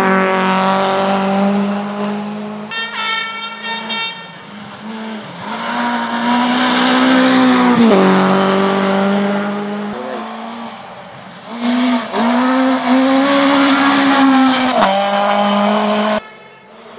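Renault Clio rally cars passing one after another at full throttle on a gravel stage, engines revving high, then falling sharply in pitch as each goes by. Tyres rasp on the loose gravel. The sound cuts off suddenly near the end.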